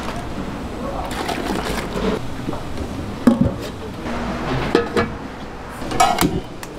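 Water being poured and splashed into a stainless steel stockpot, with a few sharp metal clanks of pots and a lid in the second half.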